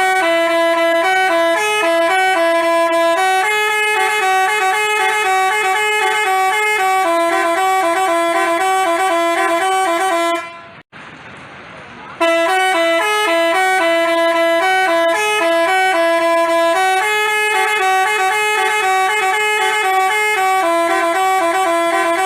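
Basuri telolet bus horn, a multi-tone musical horn, playing a quick melody of stepping notes. It breaks off about ten and a half seconds in and starts up again about a second and a half later.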